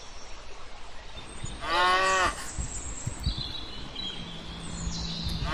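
A cow mooing: one short moo about two seconds in that drops in pitch at its end, and a second moo starting right at the end.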